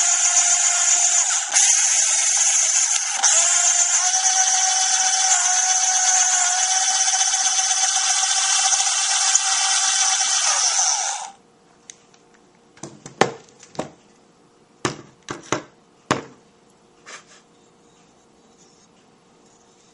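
Electric drill running a 5 mm bit up and down the resistor hole of a 3D printer's hot-end heater block, reaming the hole wider so the heater resistor fits. A steady whine that stops suddenly about eleven seconds in, followed by a few light clicks and knocks.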